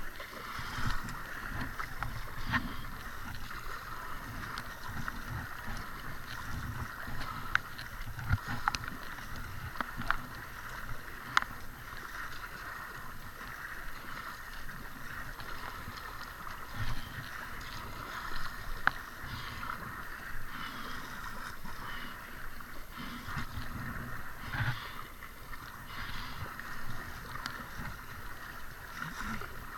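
Paddle strokes splashing and dipping in the water alongside an inflatable kayak, with water washing against the hull and several sharp knocks scattered through.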